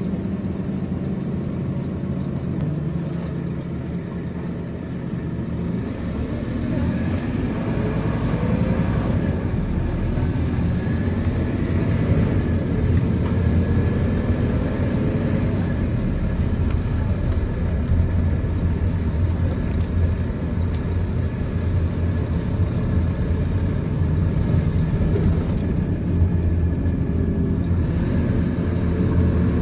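Scania K230UB bus's five-cylinder diesel engine and ZF gearbox, heard from inside the passenger cabin under way. About six seconds in the bus picks up speed, and the engine gets louder and its pitch rises; it climbs again near the end.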